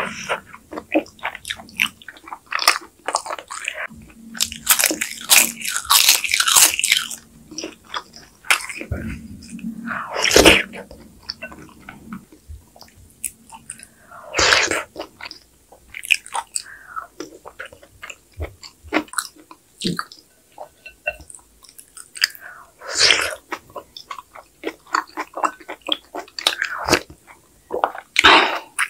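Close-miked eating of kimchi sujebi (hand-torn dough soup in spicy kimchi broth): wet chewing and mouth sounds with crisp crunches of kimchi, broken by louder slurps of spoonfuls of broth and dough.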